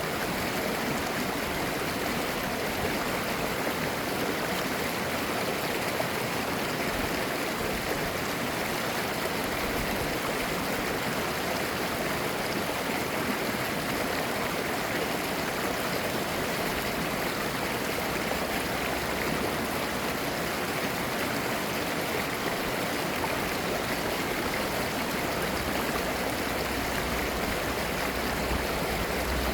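Mountain stream flowing over rocks, a steady rush of water with a babbling, gurgling texture.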